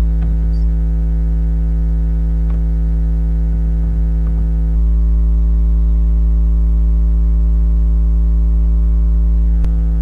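Loud, steady electrical mains hum with a buzz of many overtones, picked up on the recording, and a few faint clicks.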